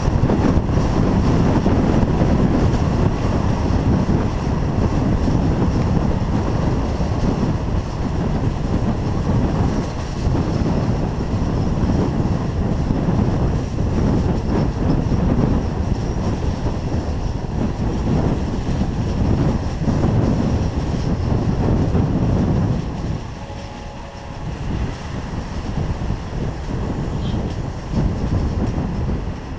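Passenger train running on the rails, heard from outside the carriage: a steady rush of wind and wheel-on-rail rumble. It quietens noticeably about three-quarters of the way through.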